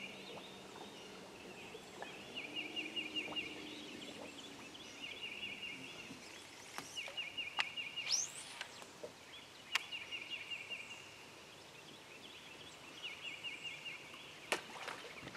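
A bird repeating a short, rapid, high trill about every two seconds. A few sharp clicks of rod and reel handling sound over it, and a quick rising whizz about eight seconds in comes as a cast goes out.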